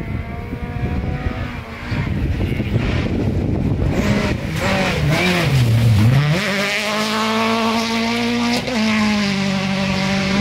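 Rally car passing close on a gravel stage: its engine note dips and jumps in quick blips, then climbs about six seconds in and holds at high revs as it accelerates, with tyre and gravel noise underneath.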